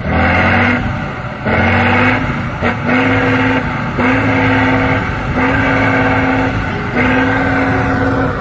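Eight-wheeled off-road trial truck's diesel engine revving hard under load as the truck climbs a steep dirt bank. It is held at high revs in stretches of about a second or so, broken by brief dips as the throttle is worked.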